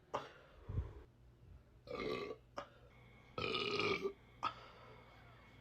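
A woman belching: a burp about two seconds in and a longer one about three and a half seconds in, with shorter, softer sounds between them.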